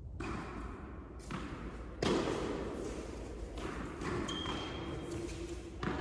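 Sharp thuds, about two seconds in and again near the end, over the steady noise of an indoor tennis hall, typical of a tennis ball bouncing or being struck on the court.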